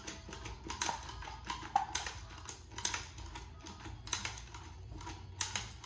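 Irregular sharp plastic clicks from a hand-worked slime-ball maker, a plunger tube pushing slime into a balloon; the louder clicks come about once a second.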